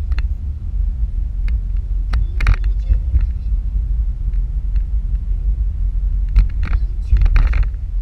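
Steady low road rumble of a car driving at freeway speed, heard from inside the cabin behind the windshield, with scattered sharp clicks and rattles, the most of them together near the end.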